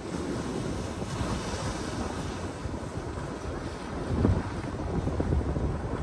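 Ocean surf breaking and washing against a coastal rock platform, with wind buffeting the microphone; the loudest surge of low rumble comes a little after four seconds in.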